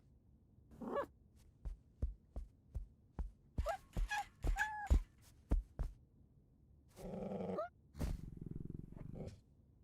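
Domestic cat vocalising: a few short rising-and-falling chirps come amid a run of light knocks and thumps. A longer, rough call follows, then a low purr-like rumble near the end.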